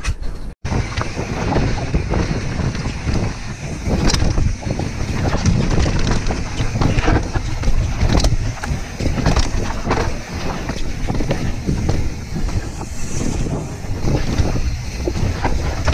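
Mountain bike descending a dirt and rock singletrack: steady tyre rumble with frequent rattles and knocks from the bike over the rough ground, and wind on the microphone.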